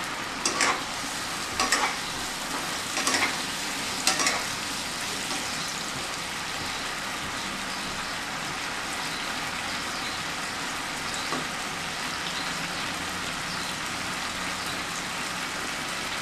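Milk gravy boiling in a pan with a steady bubbling hiss. In the first four seconds or so a stirring spoon knocks against the pan four times.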